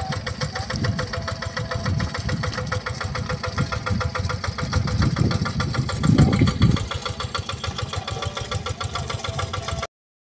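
Yanmar TF65R single-cylinder diesel engine on a two-wheel hand tractor, running steadily with a rapid, even beat of firing pulses while the tractor works through a paddy. It grows louder for a moment about six seconds in, and the sound cuts off suddenly near the end.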